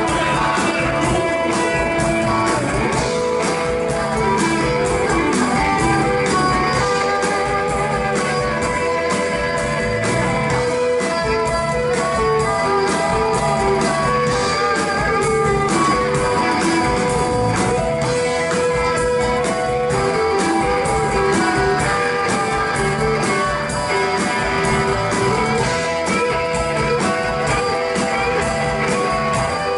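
Live rock band playing a guitar-led passage with electric guitars over a steady drum beat.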